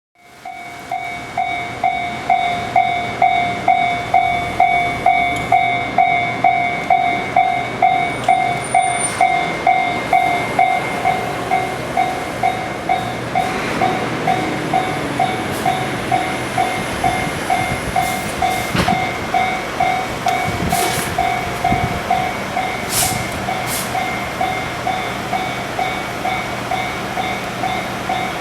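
Japanese level-crossing warning bell dinging about twice a second. About halfway in, the rumble of an approaching freight train rises under it, with a few sharp clicks.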